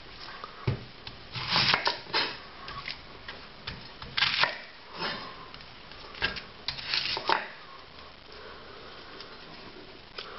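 Chef's knife slicing through a raw fennel bulb and its stalks on a wooden cutting board: a series of short, crisp cuts, with quieter handling near the end.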